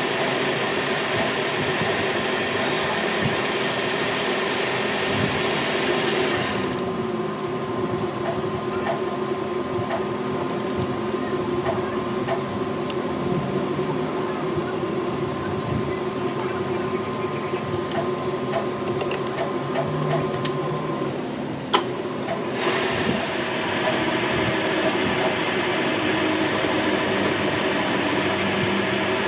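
Metal lathe running steadily with a motor hum, with a hissing layer of cutting noise for the first few seconds and again over the last several seconds, and one sharp click a little before that second stretch.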